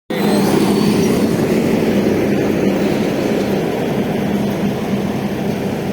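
Heavy road-construction machinery running steadily: a loud, even engine drone with a constant low hum.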